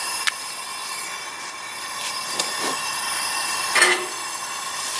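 Homemade propane burner running under a stockpot with a steady gas hiss, fed from a small propane cylinder. A sharp click sounds near the end as the cylinder is handled.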